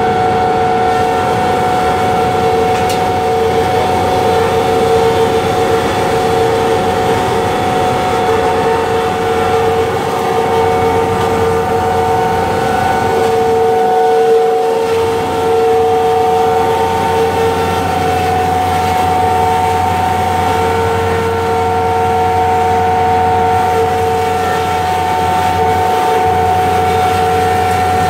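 Beaver sawdust-making machine running steadily, its stationary electric motor driving the rotor: a constant whine over an even mechanical rumble as it grinds wood and blows sawdust out of its discharge chute.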